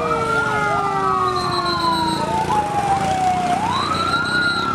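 Emergency-vehicle siren sound effect: several sirens sound at once, a slow wail sliding down and rising again about three-quarters of the way through, overlaid with faster warbling yelps.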